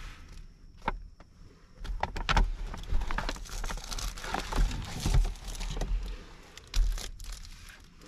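Irregular rustling and crinkling, with scattered sharp clicks and low bumps; quieter for about the first two seconds, then busier.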